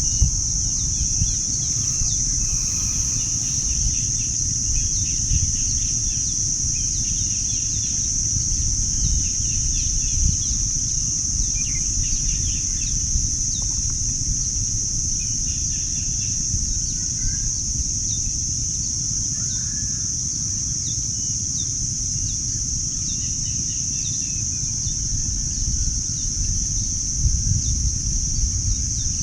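Insects keep up a steady, high-pitched chorus, with scattered short bird chirps and a low rumble underneath.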